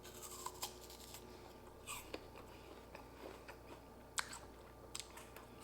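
Someone biting into and chewing a crisp raw apple slice, faint crunches and crackles scattered through.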